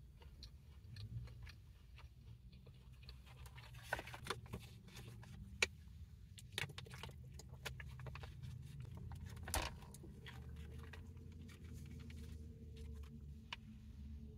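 Low steady hum of a car idling, with scattered small clicks and crackles from handling food and eating in the cabin.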